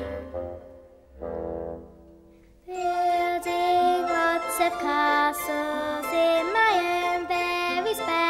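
Film score music: a phrase fades out, a short low note sounds about a second in, and after a brief hush a fuller melody enters near the three-second mark with a few sliding notes.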